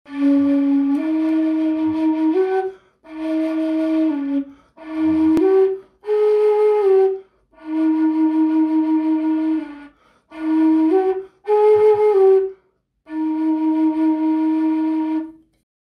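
A flute playing a slow melody in seven short phrases of a few held notes each, stepping up and down within a narrow range, with brief pauses between phrases.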